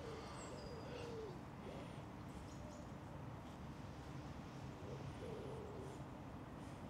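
Faint bird calls: low, soft cooing near the start and again about five seconds in, with a few thin high chirps over a quiet outdoor background.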